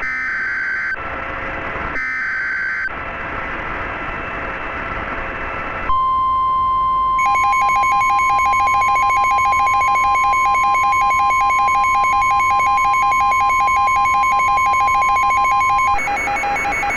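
Emergency Alert System alert: two screeching SAME header data bursts about a second apart, then a few seconds of radio static. A long steady alert tone follows, joined after about a second by a rapidly pulsing second tone for about nine seconds, then cuts back to static near the end.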